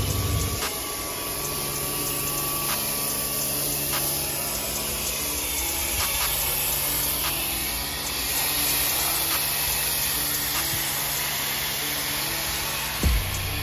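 Soft background music with held notes that change in steps, over a steady hiss.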